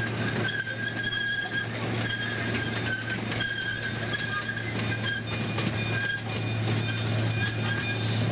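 Ride-on miniature train running along its track, heard from a passenger car: a steady low drone with a high metallic squeal over it. About halfway through the squeal shifts higher and a light, regular clicking of the wheels over the rail joints sets in, about two clicks a second.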